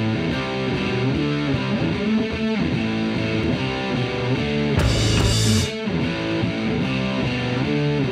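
Background music led by guitar, with a repeating pattern of sustained notes.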